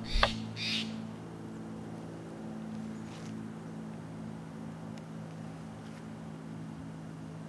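A faint, steady low hum made of several held tones, unchanging throughout.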